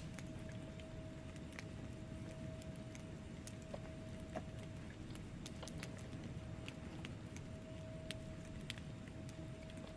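Wood fire in a fireplace burning, with a low steady rumble and irregular sharp crackles and pops from the logs. A faint steady tone runs under it.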